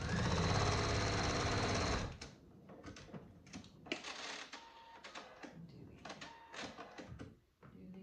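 Pfaff Creative 4.5 computerized sewing machine stitching a short dart seam at speed for about two seconds, then stopping. It is followed by softer scattered clicks and rustles as the fabric is handled.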